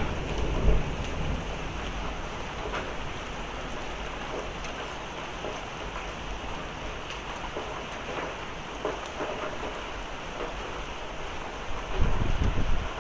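Heavy thunderstorm rain pouring steadily, with scattered sharp ticks of hailstones striking. A low thunder rumble swells near the end.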